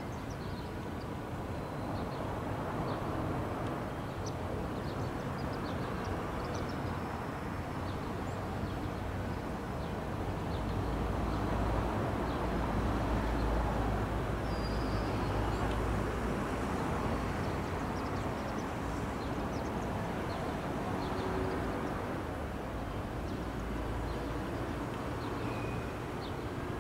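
Outdoor ambient noise: a steady low rumble of distant traffic that swells for a few seconds in the middle, with faint short high chirps scattered over it.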